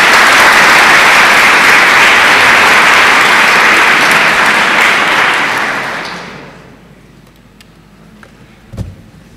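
Audience applauding, loud and steady, then dying away about six seconds in. A single low thump near the end.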